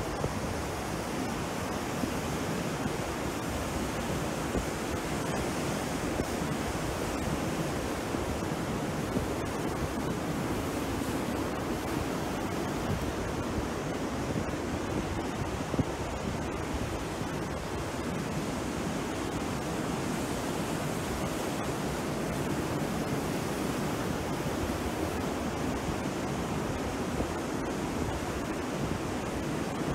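Sea surf breaking and washing onto a beach, a steady, even rush of waves.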